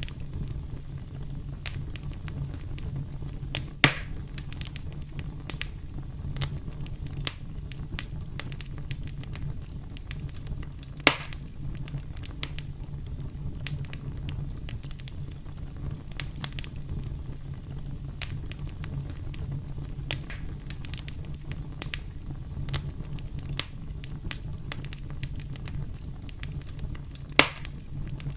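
Campfire crackling, with many small snaps over a steady low rumble and three louder pops spaced well apart.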